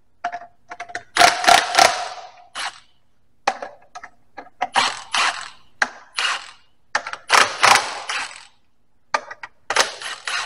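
Cordless impact driver hammering in a string of short bursts, backing off the bolts of a spring-loaded tractor clutch pressure plate on its flywheel.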